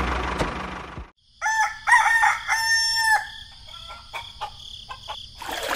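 A rooster crowing once, one long call starting about a second and a half in. Before it, a noisy mechanical sound cuts off about a second in, and a steady high background tone with scattered clicks follows the crow.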